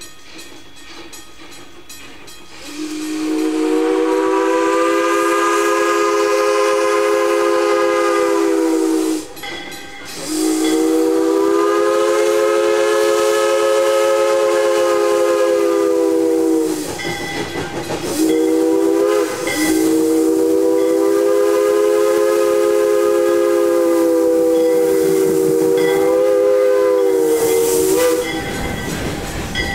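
Jeddo Coal No. 85 steam locomotive's whistle sounding a chord of several notes in the grade-crossing pattern: two long blasts, a short one and a final long one, each sagging a little in pitch as it ends. A faint hiss of steam runs underneath.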